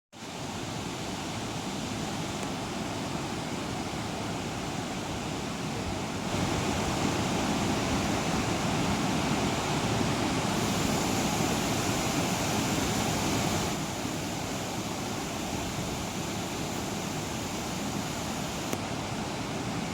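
Waterfall, its water rushing in a steady roar of noise that grows louder for several seconds in the middle and then drops back.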